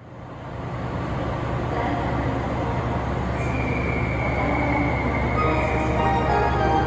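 A 413 series electric train standing at the platform, its on-board equipment humming steadily and low. A thin high whine comes in for a couple of seconds midway, and a few musical tones start near the end.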